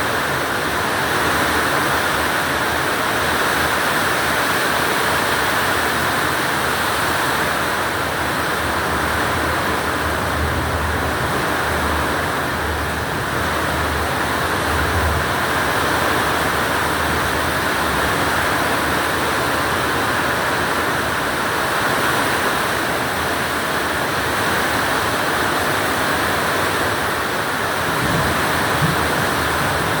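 Very heavy rain pouring down in a steady, loud downpour.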